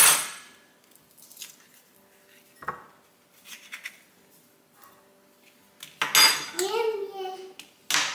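Kitchen utensils clinking and knocking against dishes while an avocado is prepared for guacamole: a few scattered taps, then a louder clatter about six seconds in. A short child's vocal sound follows the clatter.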